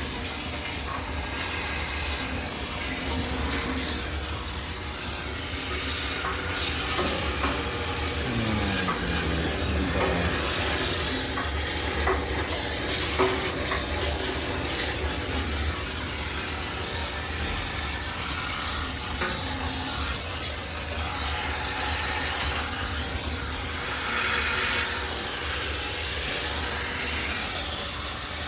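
High-pressure steam cleaner jetting steam into a washing machine for sterilization: a steady hiss over a constant low hum.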